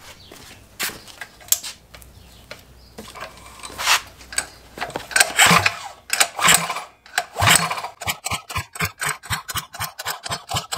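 Predator 212 mini bike engine pulled over several times on its recoil starter without firing, each pull a short rasping whirr of rope and turning engine. It is being cranked to prime the fuel pump with methanol after the carburetor was drained. A rapid, even clicking follows in the last few seconds.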